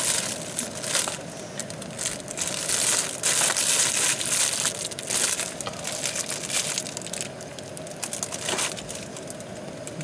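Thin plastic bread wrapper crinkling in irregular bursts as it is peeled off a raisin bread roll and crumpled in the hand, easing off over the last few seconds.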